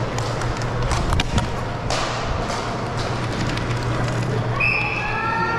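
Floor hockey (cosom) game noise in a gym: a steady bustle with sharp clacks of plastic sticks and ball about a second in. A single high-pitched squeal lasts about a second near the end.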